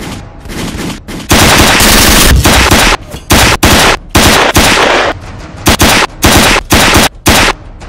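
Gunfire: a long rapid-fire burst starts about a second in and lasts over a second, followed by a quick string of about nine shorter bursts of shots.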